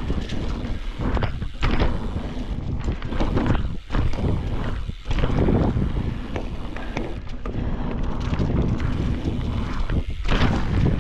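Wind buffeting the microphone of a mountain bike's ride camera during a fast downhill run, a heavy low rumble, with the bike knocking and rattling over rough trail throughout.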